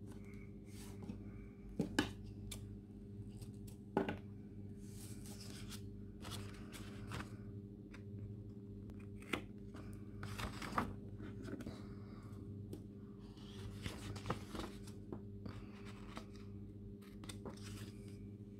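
Scissors snipping and paper being handled while washi tape is trimmed on planner pages: irregular bursts of cutting and rustling with a few sharp clicks, loudest about two and four seconds in. A steady low electrical hum runs underneath.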